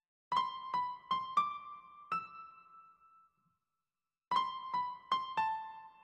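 Background piano music: a short phrase of five notes, a pause of about a second, then a second phrase of four notes.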